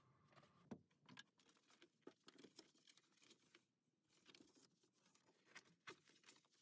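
Faint rustling and crinkling of a self-adhesive vinyl sheet being pressed and smoothed by hand onto a plywood cabinet, with scattered light taps and clicks.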